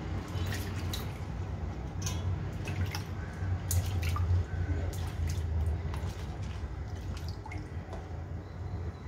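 Water splashing and dripping as hands rub and rinse pieces of crab in a steel bowl of water, washing the mud off, with small irregular splashes throughout. A steady low hum runs underneath.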